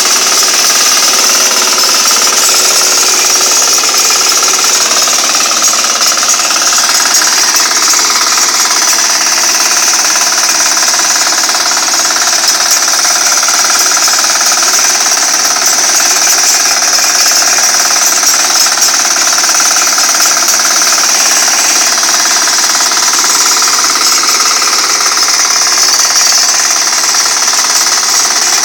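Walk-behind hand tractor's small engine running steadily under load, its cage wheel churning through soil and cut brush. It is loud and even, with no change in speed.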